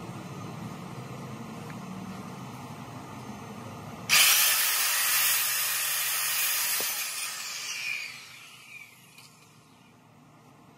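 Corded circular saw starts about four seconds in and cuts through a wooden board for about three seconds, loud and hissing; when it is released the blade spins down with a falling whine that fades out. Before the cut there is only a low steady background noise.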